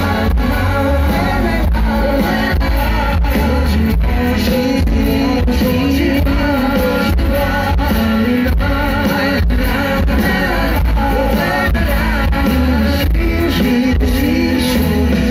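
Live band music, loud and bass-heavy, heard from the audience: male vocals over acoustic and electric guitars with a steady drum beat.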